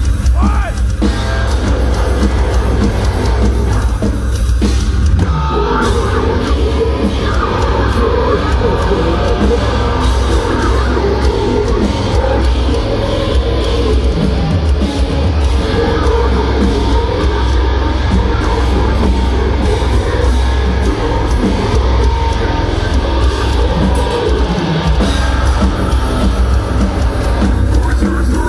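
Heavy metal band playing: distorted guitars over a drum kit, loud and unbroken throughout.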